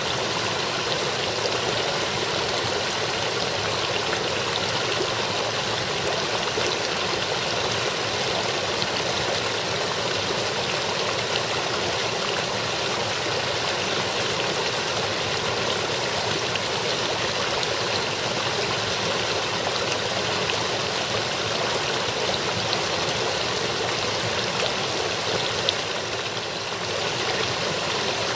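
Icy brook babbling steadily as its water runs over rocks and between ice shelves.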